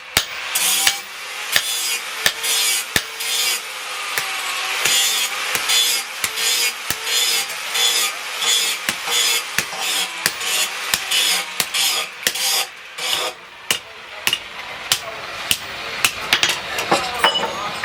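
Steel being worked by hand: repeated sharp strikes on the metal, about two a second, with rough scraping between many of the strokes. The metal is the disc-plough steel being shaped into a machete.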